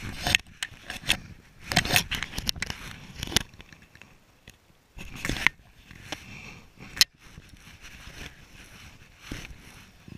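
Irregular scraping and crackling of jacket fabric rubbing against a chest-worn camera as a fly angler casts and handles line and reel.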